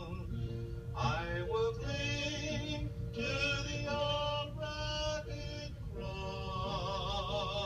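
Singing led by a man's voice, with long held notes that waver with vibrato and other voices joining in places, over a steady low hum.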